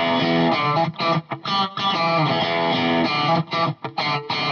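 Background music led by a distorted electric guitar, with short rhythmic breaks.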